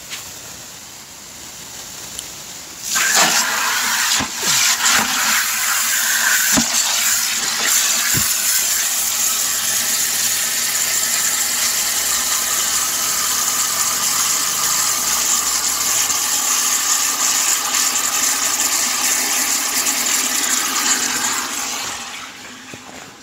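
Garden hose spray nozzle jetting water into a plastic bucket, a steady rushing splash. It starts suddenly about three seconds in and dies away near the end.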